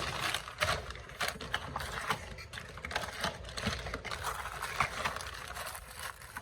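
Handling of a plastic nipple feeder bowl: a quick, irregular run of small clicks, taps and scrapes.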